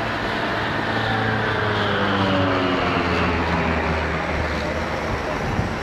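Airplane engine passing by, its note falling in pitch as it goes past, loudest about two seconds in.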